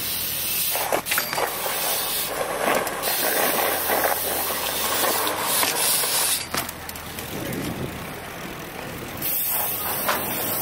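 BMX bike riding over block paving and concrete: steady rushing tyre noise with a few sharp knocks from the bike hitting the ledges, quieter for a couple of seconds past the middle.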